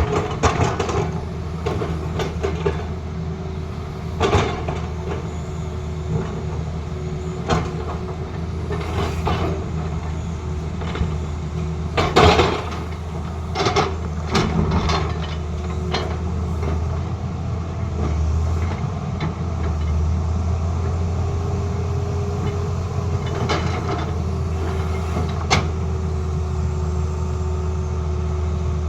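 Tata Hitachi excavator's diesel engine running steadily with a constant whine over it, broken by scattered metallic clanks and knocks, several of them together about twelve to fifteen seconds in. The engine note grows heavier about twenty seconds in, as it takes load.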